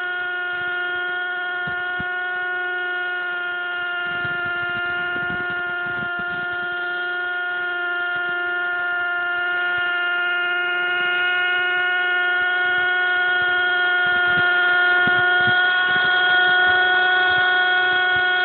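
Small nitro-fuelled engine of a Zoom 450 IC radio-controlled helicopter running at a steady high speed in flight, a constant high whine. It grows louder near the end as the helicopter comes in close overhead.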